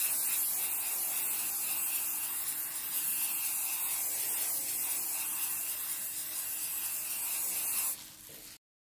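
Aerosol hairspray can spraying in one long, steady hiss that cuts off abruptly near the end.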